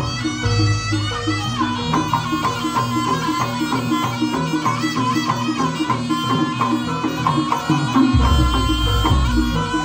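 Javanese jaranan ensemble music: a reedy slompret (shawm) plays a shifting melody over steady kendang drum and percussion strokes. Deep low gong-like notes sound in the first second or so and again from about eight seconds in.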